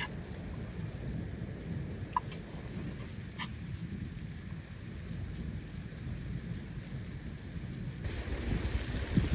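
Steady low rumbling background noise, with a few light metallic clinks of a spoon against a metal bowl. A brighter hiss comes in near the end.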